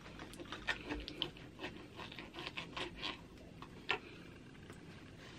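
Plastic knife and fork cutting a barbecued pork chop on a wooden cutting board: a run of light clicks and small scrapes, with one sharper click about four seconds in as the knife is set down on the board.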